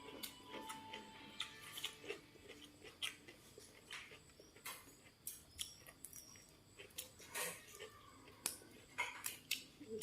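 Close-up eating sounds: chewing and biting with short, irregular crunchy clicks, and now and then a light clink of cutlery or dishes.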